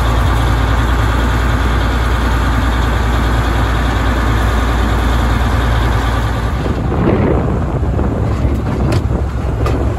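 Vulcan 65-ton diesel locomotive's engine running with a steady low hum. About seven seconds in it gives way to the rolling rumble of a caboose on the track, with a few sharp clacks from the wheels.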